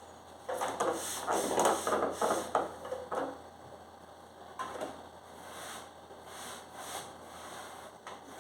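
Refrigerator parts being handled: a quick run of clattering knocks and scrapes, then a few lighter knocks, as shelves or drawers are moved and fitted.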